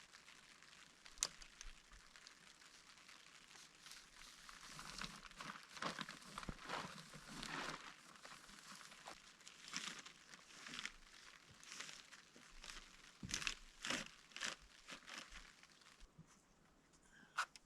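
Faint, irregular rustling and crackling with scattered light clicks, thickest through the middle and thinning out near the end.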